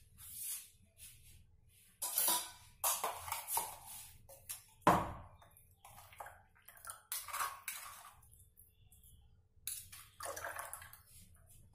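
Thick blended beetroot pulp and juice being poured out of a steel mixer jar into a steel tumbler and worked by hand: wet pouring and squelching in irregular bursts, with a sharp knock of steel about five seconds in.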